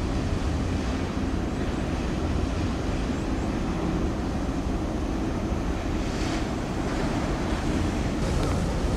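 Wind rumbling on the microphone over a steady low hum of ships' engines out on the water.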